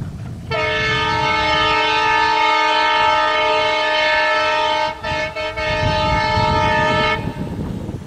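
Air horn of a Bangladesh Railway WDM-3A (ALCO) diesel locomotive, BR 6512, sounding one long chord-like blast of about seven seconds, loud, with a brief break about five seconds in.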